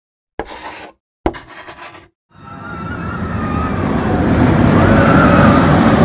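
Intro sound effect: two sharp clacks, then the rush of a roller coaster train approaching, growing steadily louder with a faint wavering high tone on top.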